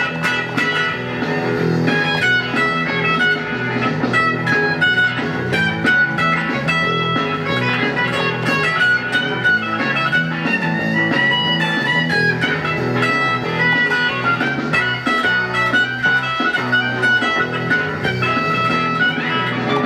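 Fender Telecaster electric guitar playing a single-note lead in E major through a Fender G-DEC 3 modeling amplifier, over the amp's backing track with a steady, repeating bass line. A few notes glide in pitch where strings are bent.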